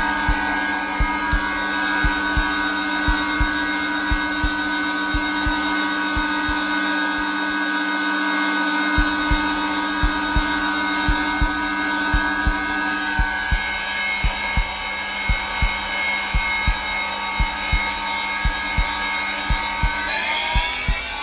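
Zelmer vacuum cleaner running steadily at its lowest setting, a constant whining hum, with a heartbeat thumping in an even rhythm over it. The motor's pitch shifts slightly a little past halfway and again near the end.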